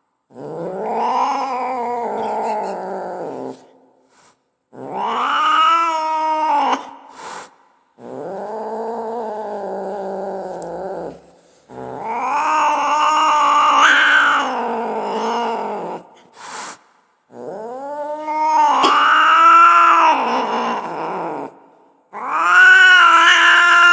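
Angry cat yowling: about six long, drawn-out caterwauls, each rising and then falling in pitch, with short pauses between them.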